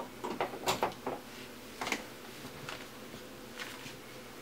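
A few scattered clicks and knocks from a TV's power plug and cord being handled and pushed into a wall outlet, over a faint steady hum.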